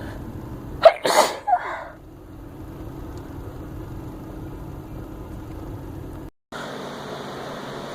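A woman sneezing once, sharp and sudden, about a second in, with a short second burst straight after.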